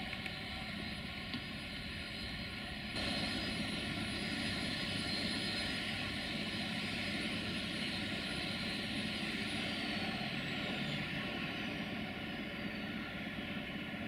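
Steady hissing roar of a gas torch flame heating a railway wheelset, louder from about three seconds in. A faint high whine falls in pitch near the end.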